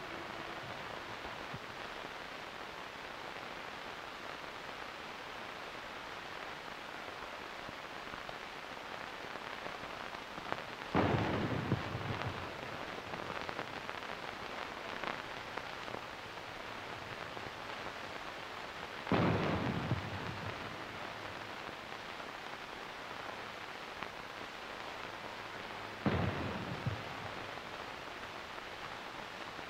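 Steady crackling hiss of a worn archival film soundtrack, broken three times by a dull boom, the booms about seven to eight seconds apart.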